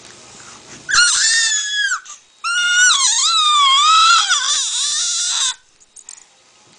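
A baby's high-pitched squeals of delight: a short one about a second in, then a longer one of about three seconds whose pitch wavers up and down.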